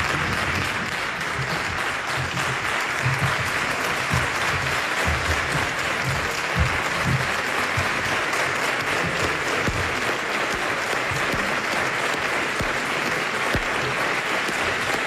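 A group of people clapping, sustained and even, with the applause carrying in a large hall.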